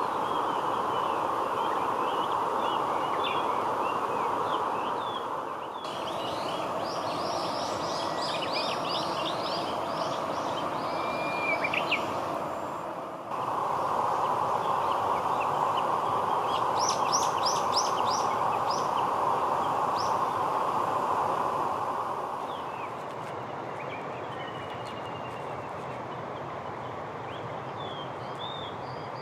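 Several small birds calling and singing, with quick runs of short high notes and a brief trill, over a steady rushing background noise that shifts abruptly a few times.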